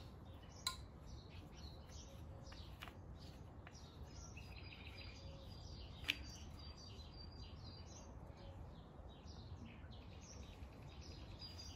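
Quiet outdoor background with small birds chirping, and a few sharp clicks from handling metal gas canisters, the loudest about six seconds in.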